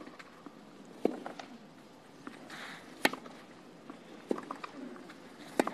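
Tennis ball being hit back and forth in a baseline rally on a clay court: sharp racket strikes roughly every two seconds, about one, three and five and a half seconds in, with fainter knocks between them.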